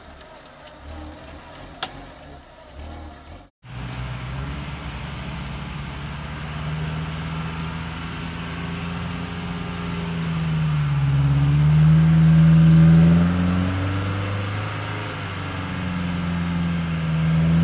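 Off-road UAZ-469 jeep's engine working under load on a climb, its revs rising and falling again and again, loudest about two-thirds of the way through. Before it, a few seconds in, there is a short break in the sound.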